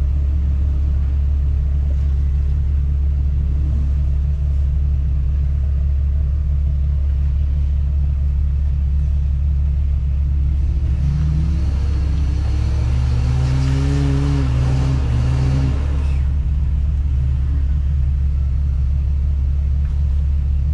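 Off-road Jeep engine running with a steady low drone. About eleven seconds in it revs up for several seconds, rising in pitch with added rough noise, then settles back to the steady drone.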